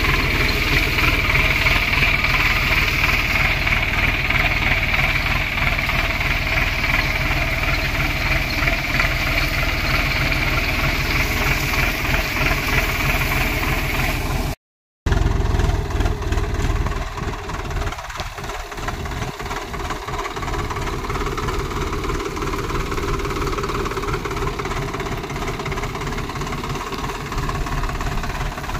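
Swaraj 744 XT tractor's three-cylinder diesel engine running steadily under load as it pulls a stone-weighted tillage implement through the field. The sound breaks off for a moment about halfway through, then carries on a little quieter.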